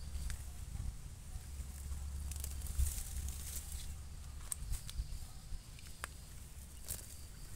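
Weeds and leafy plants rustling as they are pulled up and shaken out by gloved hands, with a few sharp snaps of stems. A steady low rumble sits underneath.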